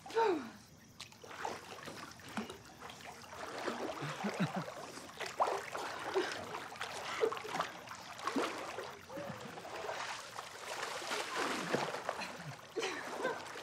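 Water splashing and lapping in a swimming pool as swimmers move through it, with brief small sounds scattered through.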